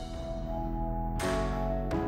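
Background music of sustained, held chords, moving to a new chord about a second in.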